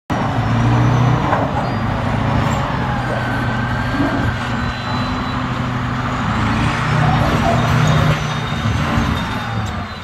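Armored Caterpillar D9 bulldozer's diesel engine running loud and steady under load as the machine pushes a tank bridge along on its tracks; the engine eases off just before the end.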